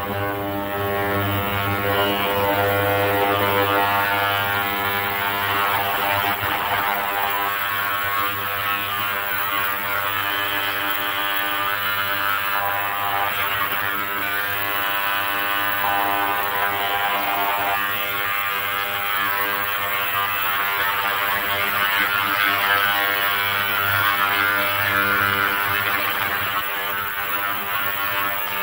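Digital ultrasonic cleaner running: a steady buzz with a hiss as it sonicates carbon nanotubes dispersed in acetone.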